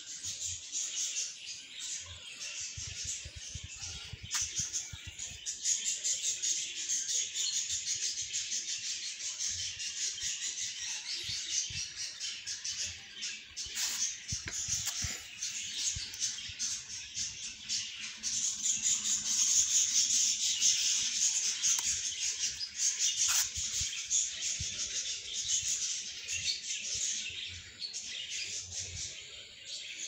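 Budgies chirping and chattering without a break, a dense high-pitched twittering that grows loudest a little past halfway.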